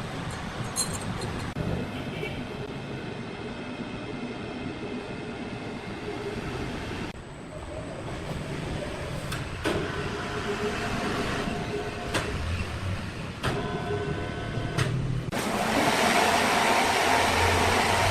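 Sawmill machinery running, with several sharp knocks and clunks along the way; about fifteen seconds in it turns into a louder, rougher steady noise.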